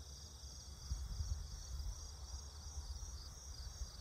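Insects chirping in a steady, pulsing high chorus, over a low rumble that swells about a second in.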